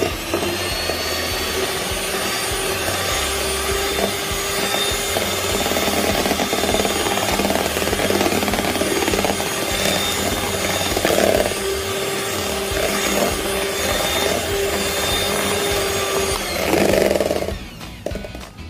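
Electric hand mixer running steadily, its twin beaters whipping cream in a stainless-steel bowl: a constant motor hum with the whirr of the beaters in the cream, cutting off about a second before the end. The cream is still short of stiff peaks.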